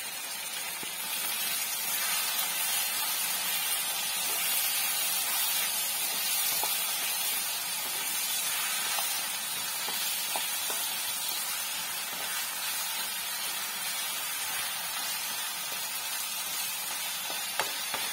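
Chicken pieces frying with masala in a pan: a steady sizzling hiss with a few faint clicks.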